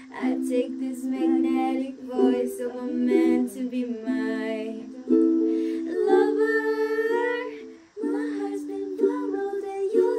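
Ukulele strummed in steady chords with female voices singing a melody over it. The strumming breaks off briefly about eight seconds in, then starts again.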